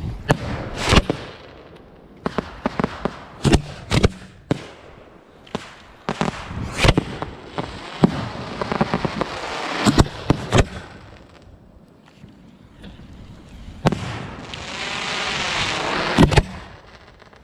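Consumer fireworks going off: an irregular string of sharp bangs and pops, with a stretch of hissing crackle about eight seconds in and a louder one near the end, closed by a couple of final bangs.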